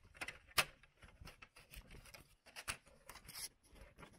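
Paper envelopes rustling and sliding against a printer's plastic feed tray as they are loaded by hand, with a string of small clicks and taps; the sharpest click comes about half a second in.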